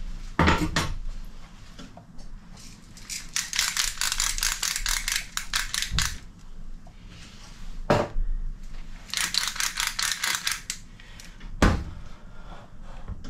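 Hand pepper mill grinding peppercorns in two runs of rapid crunchy clicks, a few seconds each, with a few knocks in between.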